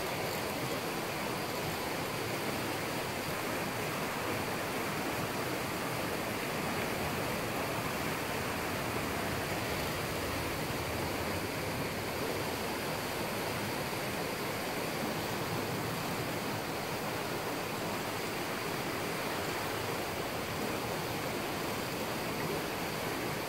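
Fast-flowing, swollen river rushing steadily in an even roar of water with no breaks.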